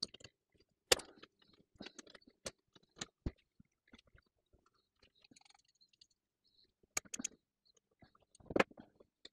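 Adjustable spanner clicking and knocking against the metal blade clamp of an Erbauer ERS1100 reciprocating saw as it is forced round. The clamp is stiff and will not lock in. Irregular sharp taps and scrapes, with a quick cluster about seven seconds in and a louder knock near the end.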